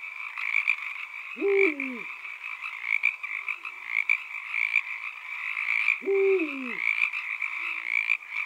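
A dense chorus of frogs calling without pause. A deeper croak that falls in pitch stands out twice, about five seconds apart, each followed by a fainter short call.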